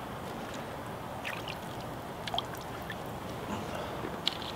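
Steady rush of river water, with a few light clicks of a plastic filter and bottle cap being unscrewed and handled.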